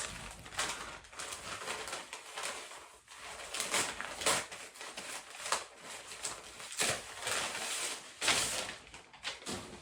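Packing material rustling and crinkling in irregular handling strokes as an item is unwrapped from a shipping box, with louder swishes about four, seven and eight seconds in.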